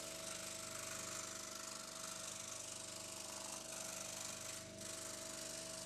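Proxxon DS460 scroll saw running, its blade moving rapidly up and down. The sound is a quiet, steady hum with a fast, even chatter.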